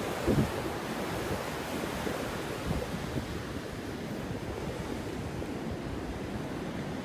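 Surf washing steadily on the beach, with wind buffeting the microphone. A few brief low thumps stand out at the start and again about two and a half seconds in.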